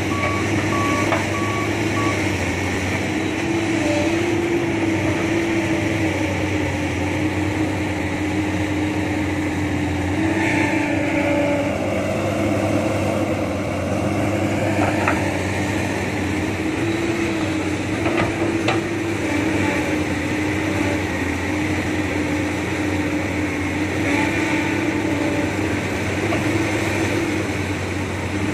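Komatsu PC200 hydraulic excavator's diesel engine running steadily as it digs and loads earth, its note wavering slightly with the work. A warning alarm beeps in short, even pulses for the first couple of seconds, and a few sharp knocks come about halfway through.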